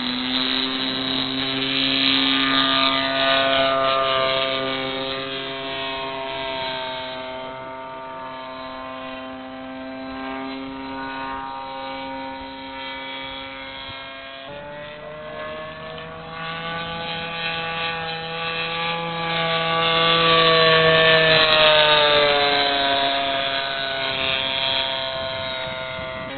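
Quarter-scale SIG Extra 300 radio-control plane flying, its O.S. 1.60 model engine running at a steady pitch that slides up and down as the plane manoeuvres. The note grows louder and fainter as the plane passes, loudest a couple of seconds in and again about two-thirds of the way through, and it changes suddenly about halfway.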